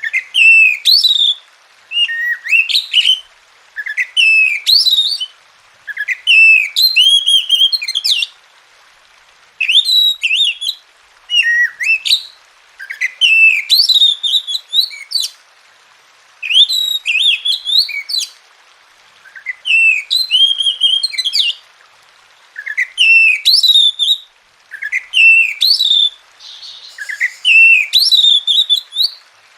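Oriental magpie-robin (kacer) singing: short phrases of clear whistled and chirping notes, one after another with brief pauses between them.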